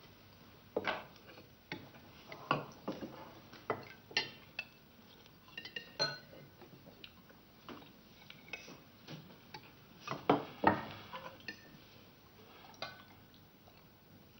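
Ladle and spoons clinking against china soup plates and a tureen as soup is served and eaten: scattered light clinks and knocks, the loudest pair a little after ten seconds in.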